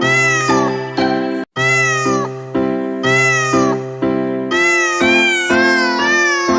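Cat meows repeated about every half second, each rising and falling in pitch, over music with steady held chords and a low bass line. Sound drops out briefly about one and a half seconds in.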